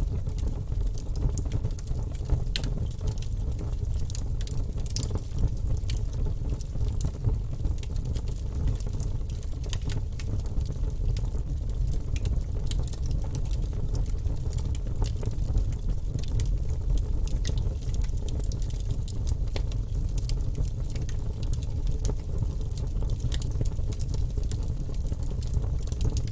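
Wood fire burning in a fireplace: a steady low rumble of flames with frequent small irregular crackles and pops.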